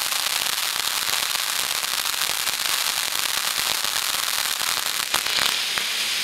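Panda Fireworks 'Digital Life' ground fountain spraying sparks with a dense, continuous crackle. A few louder pops come about five seconds in, and near the end the crackle gives way to a steadier hiss as the fountain changes effect.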